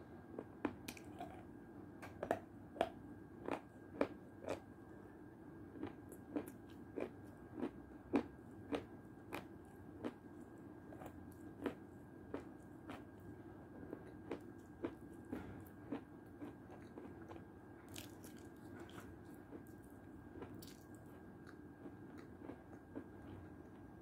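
Close-miked eating sounds: chewing and wet mouth noises with many sharp, irregular clicks and smacks, coming thickest and loudest in the first half and thinning out later.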